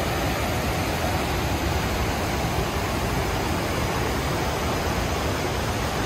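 Fast river rushing over boulders below a stepped weir waterfall: a steady rush of whitewater, the river running high after the monsoon rains.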